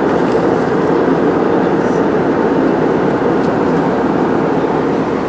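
Airbus A320 in flight, heard from inside the cabin over the wing: a loud, steady rush of engine and airflow noise with no change.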